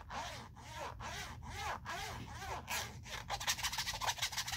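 Fingers scratching the rough-textured back cover of a ZTE Jasper LTE smartphone, to let its unusual material be heard. The strokes come about two a second at first, then turn into a fast rapid scratching from about three seconds in.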